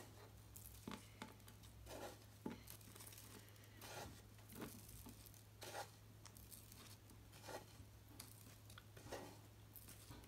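Faint, irregular ticks and rustles of bouncy-ball crystals being scooped and tipped into a plastic ball mould to fill it to the top, over a low steady hum.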